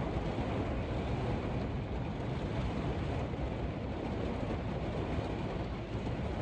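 Steady heavy rain falling, with a low rumble of wind buffeting the microphone.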